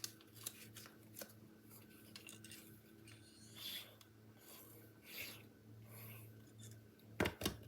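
Paper and cardstock pieces being handled on a work surface: faint rustling and rubbing, with a few sharp light taps near the end.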